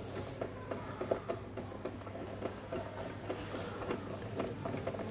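Screwdriver driving a mounting screw into a smart lock's interior unit: small irregular clicks and scrapes of metal on metal over a low steady hum.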